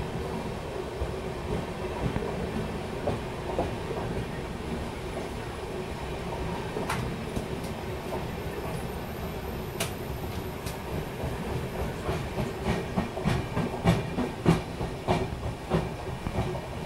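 Indian Railways passenger train running, heard from inside a coach: a steady rumble with a droning tone, and wheels clacking over rail joints. The clacks come scattered at first and grow quicker and louder in the second half.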